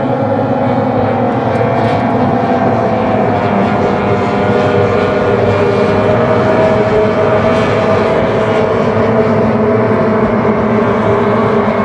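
Several race boat engines running loud together, their overlapping engine notes drifting slightly in pitch.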